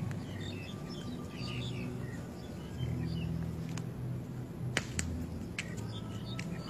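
Small birds chirping here and there over a low hum, with a few sharp clicks, the loudest two close together about five seconds in.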